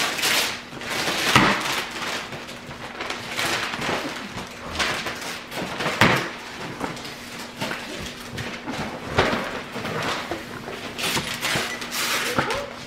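Rustling and crinkling of gift wrap and tissue paper as presents are torn into and handled, with scattered knocks of boxes being moved.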